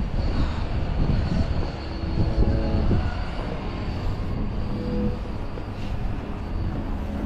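Strong blizzard wind buffeting the microphone in a steady low rumble, mixed with the engine of a passing vehicle. The engine is heard most clearly about two to three seconds in.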